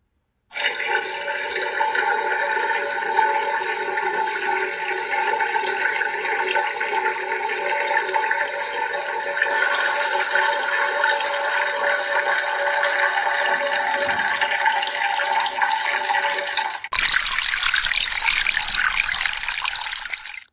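Peeing sound effect: a steady stream of liquid splashing into toilet water, with a hollow ringing tone to it. About three seconds before the end it cuts abruptly to a broader rush of water.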